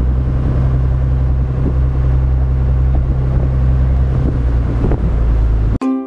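Steady low drone of a river boat's engine while under way, with wind noise on the microphone. Near the end it cuts off suddenly and plucked ukulele music begins.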